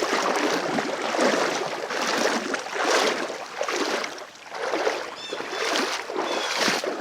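Water sloshing and splashing around the legs of someone wading through a knee-deep creek, swelling and easing in surges about every second or two with each stride.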